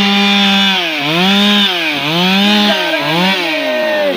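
Stihl MS 382 two-stroke chainsaw running at high revs, its pitch sagging and recovering about once a second, four times, then winding down near the end.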